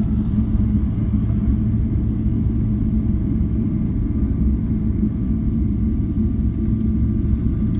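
Steady low rumble inside the cabin of a Boeing 777-300ER rolling out on the runway after touchdown, with a faint steady hum from its engines.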